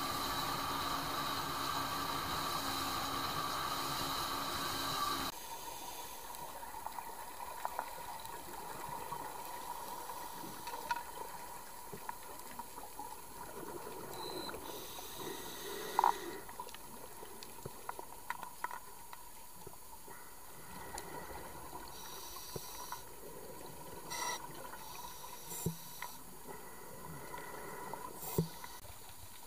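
Steady noise aboard a moving motorboat, which stops abruptly about five seconds in. After that comes muffled underwater sound heard through a camera housing: a faint even water hiss with scattered clicks and a few short, louder bubbling bursts.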